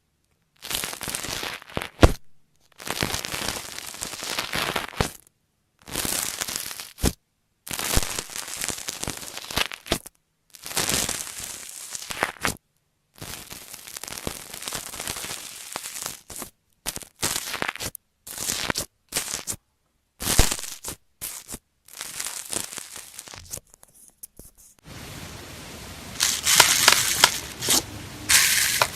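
Slime being squeezed and pressed by hand, crackling and popping, in short separate clips with silent gaps between them and occasional sharp pops.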